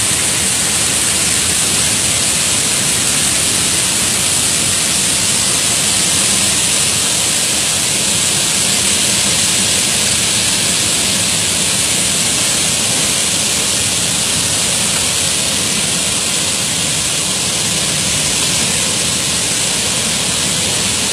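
Bản Giốc waterfall's roar heard up close: a loud, steady rush of falling water that does not change.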